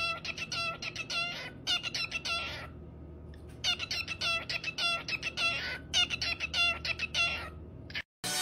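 Cockatiel chirping in quick repeated calls, about three or four a second, in two bouts with a short pause about three seconds in.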